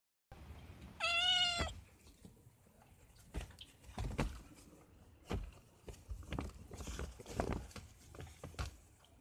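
A kitten meows once, a single high-pitched call about a second in. This is followed by intermittent crinkling and rustling of a woven plastic sack.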